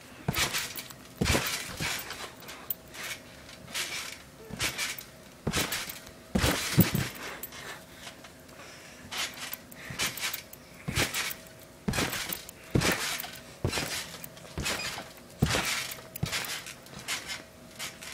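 Trampoline being bounced on: each landing gives a thump of the mat with a clinking creak from the springs, in a steady rhythm of about one bounce every second and a half.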